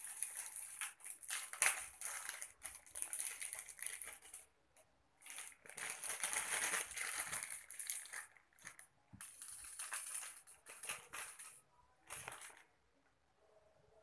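A thin clear plastic packet crinkled and crackled in the hands in stop-start bursts as it is opened to get small craft stones out. It stops near the end.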